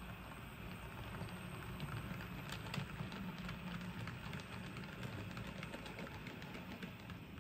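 O-scale model train running on the layout: a steady low motor hum with light, irregular clicking of wheels over the track, the clicks thickest from about two seconds in.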